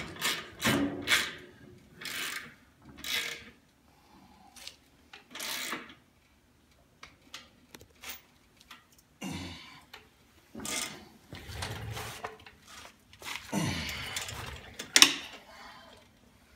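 Socket ratchet working a bolt on a motorcycle's exhaust: short rasping bursts of ratchet clicks, one stroke at a time, with pauses between groups of strokes.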